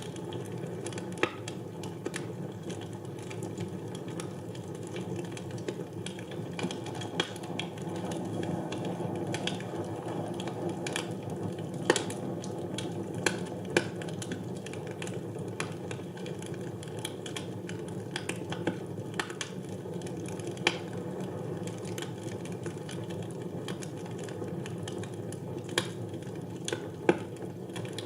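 Wood fire burning in a fireplace: a steady low rush of flame with scattered small crackles and an occasional louder sharp pop.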